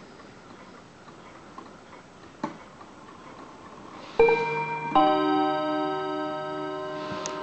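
Art Deco mantel clock ticking quietly, with a single click a couple of seconds in. Its hammers then strike two chime notes about a second apart for the half hour; the second note is fuller, and both ring on and fade slowly.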